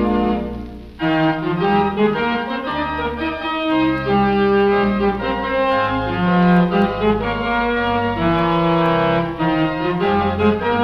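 A 4-manual, 21-rank Wurlitzer theatre organ playing a selection of popular songs in held chords and a moving melody, heard from a 1937 78 rpm shellac record with a dull, treble-less top. A held chord dies away just under a second in, then a new phrase starts.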